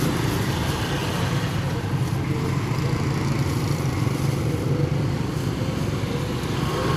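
Motor scooter engines running steadily at low revs nearby, a continuous low rumble.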